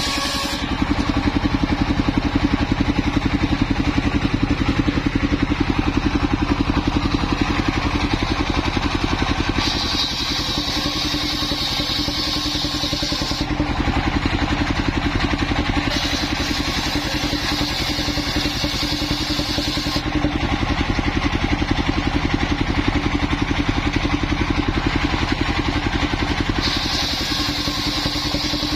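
Homemade circular saw rig running steadily under power. A higher whine rises in three stretches as the blade cuts lengthwise through waru wood for roof battens.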